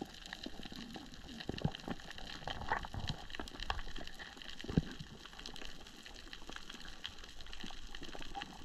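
Underwater ambience over a coral reef: a steady scatter of faint clicks and crackles, with a few soft low knocks, the strongest about five seconds in.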